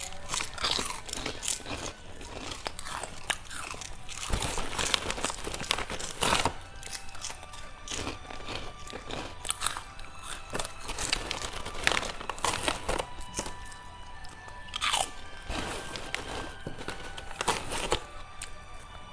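Close-miked eating of crispy food: repeated crunchy bites and chewing, with sharp crackles throughout.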